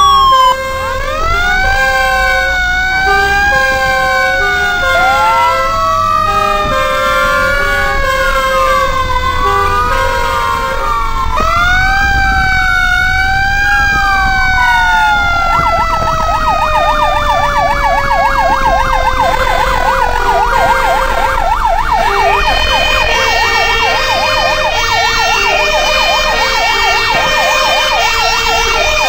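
Several emergency-vehicle sirens wailing over one another, their pitch sliding slowly up and down. From about halfway a fast yelp joins, and in the last few seconds a stepped, switching tone pattern.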